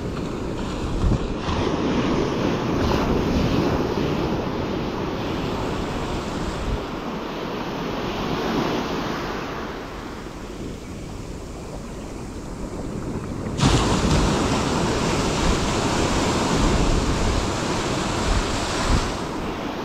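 Surf washing on a beach, a steady rush of breaking waves with wind on the microphone. It turns suddenly louder and brighter about two-thirds of the way through.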